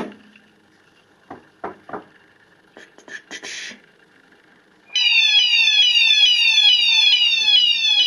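Fire alarm sounders, including two synchronised Fire Cryer Plus units, start sounding suddenly about five seconds in with a rapidly repeating falling sweep over a steady tone. The system has just been set off by testing its ionization smoke detector. Before that there are a few short clicks and a brief hiss.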